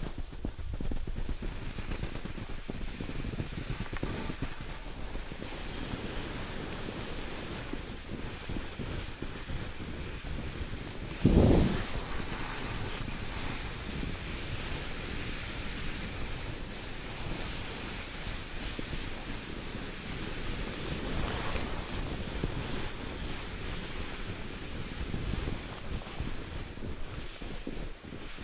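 Skis running over snow with wind rushing over the microphone, a continuous hiss that swells and fades now and then. A single loud thump about eleven seconds in.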